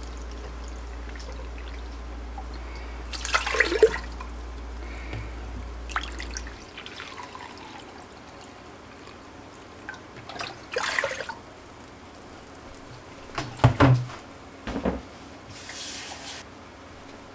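White vinegar poured from a plastic gallon jug into a glass measuring cup and emptied into a stainless steel pot: liquid splashing and trickling in several separate pours.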